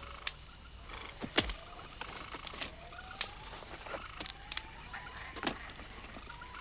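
Night jungle ambience: a steady high insect chirring, with a call that slowly rises in pitch, repeated every second or two. A few sharp clicks and rustles cut through it.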